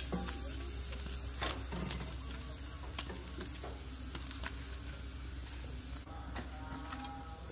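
Metal tongs clicking against a wire grill rack and a bowl as charred onions are picked off the grill, a few separate sharp clicks over a steady low hum.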